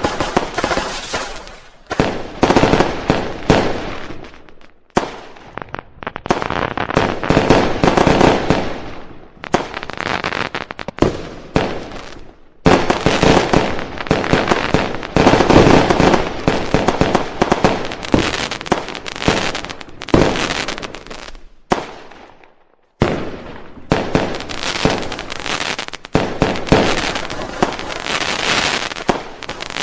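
Festival fireworks going off in a rapid barrage of bangs and crackling. It pauses briefly three times, about five, twelve and twenty-two seconds in.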